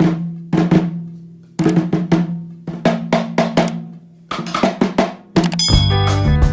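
Intro music: drum strikes in short rhythmic groups, joined about five and a half seconds in by fuller instrumental music with sustained notes.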